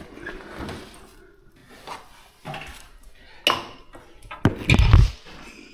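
Irregular knocks and clatters of hard objects, with a heavier low thump a little before the end.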